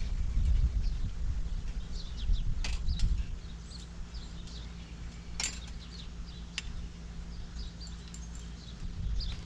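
Wind buffeting the microphone, strongest in the first few seconds, while metal fencing wire is worked by hand, giving a few sharp clicks and creaks about a second or more apart. Faint bird chirps sound in the background.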